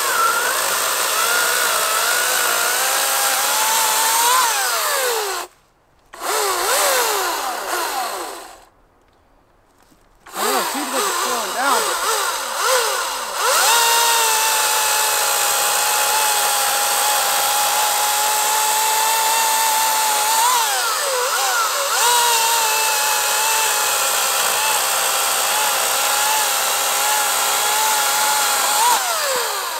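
Atlas 80V brushless battery chainsaw cutting through a log: an electric motor whine with the chain rasping through the wood. In the first ten seconds the saw winds down and stops twice, starting up again each time, then runs steadily through a long cut and winds down near the end.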